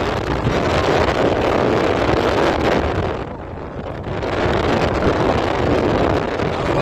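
Wind buffeting a phone microphone on a moving vehicle, over the vehicle's running noise. It eases for about a second just past the middle, then comes back as strong.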